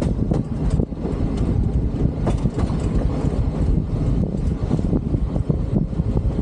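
Solar-powered train running along the track at regular speed: a steady low rumble of wheels on rail, with wind buffeting the microphone and scattered clicks.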